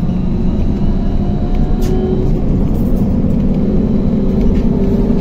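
Trolleybus riding along a city street, heard from inside the passenger cabin: a steady low hum of motor and road noise, with a faint whine above it.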